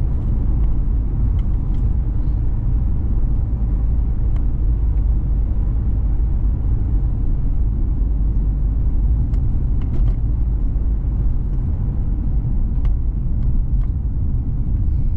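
Car driving at steady speed, heard from inside the cabin: a steady low rumble of road, tyre and engine noise, with a few faint clicks.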